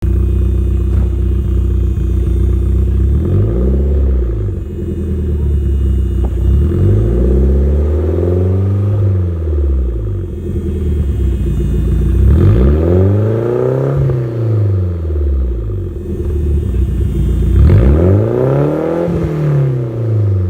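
Nissan 180SX's four-cylinder engine idling through a GP Sports EXAS Evo Tune exhaust with the silencer removed, revved four times in neutral, each rev rising and falling smoothly over a few seconds, the first one small. A faint steady high whine comes from the fuel pump, which is loud on this car.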